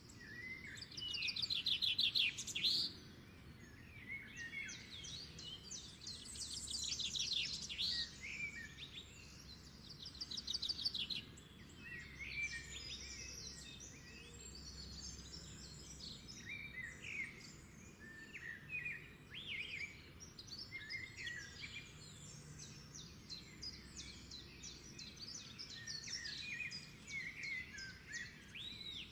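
Several birds singing and calling at once, with repeated rapid trills and short chirped phrases, the loudest trill in the first few seconds, over a faint low background hiss.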